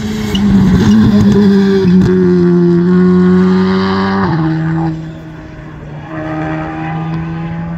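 Rally car engine at high, steady revs as the car runs flat out past close by, its pitch stepping down at two upshifts about two and four seconds in. It fades for about a second, then grows louder again as the car carries on.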